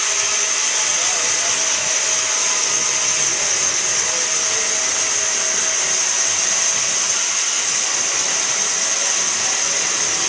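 Band saw cutting through a thick block of wood as it is fed into the blade: a steady, even whirring hiss with no break.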